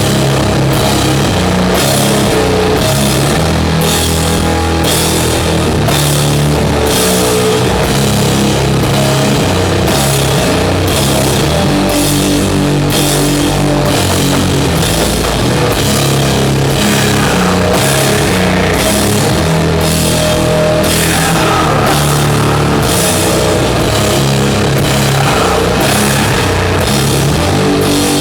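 Doom metal band playing live and loud: heavily distorted guitars and bass hold slow, low chords over drums, with a cymbal struck about once a second on a steady beat.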